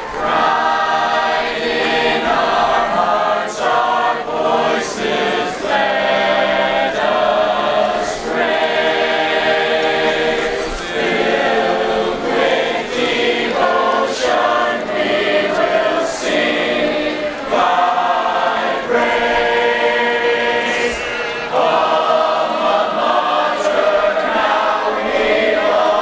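Marching band members singing a school song together in chorus, unaccompanied, in long held phrases.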